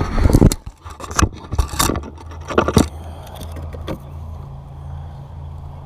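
A freshly caught bass being landed and handled: a few loud bursts of thrashing, scraping and rattling in the first three seconds, over a steady low motor hum.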